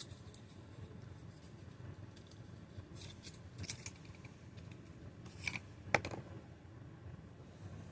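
Faint handling of small plastic parts as an LED bulb is worked into a vacuum cleaner's headlight socket: a few light clicks and scrapes, the sharpest a little past the middle.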